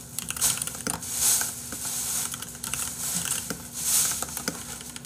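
Soft rustling swells and scattered light clicks of things being handled at a desk, over a faint steady hum.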